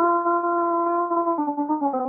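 A woman singing an Odia devotional song to the Mother, holding one long note that steps down in pitch near the end. The sound is thin and band-limited, as over an online call.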